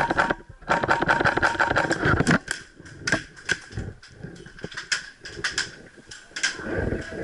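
Airsoft rifle shots from a PolarStar air-powered F2000 fired on semi-auto, sharp cracks in a fast string of rapid trigger pulls over the first couple of seconds, then sparser shots.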